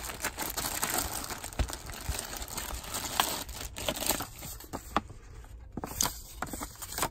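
Clear plastic zip-top bag crinkling as it is handled and pulled open, dense for about four seconds, then thinning to scattered rustles and light taps.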